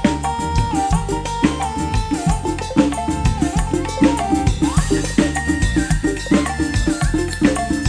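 Live dangdut band playing an instrumental passage: a fast, regular drum pattern over a strong bass, with a held-note melody that moves to a higher register about five seconds in.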